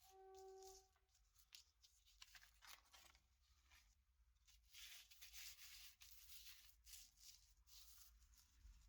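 Faint scraping and rubbing in irregular strokes, opening with a brief pitched ring in the first second.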